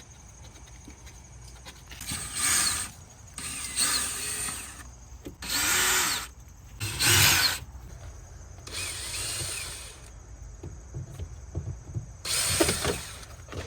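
Power drill running in about six short bursts, backing out the Phillips-head screws that hold the car's rear wing.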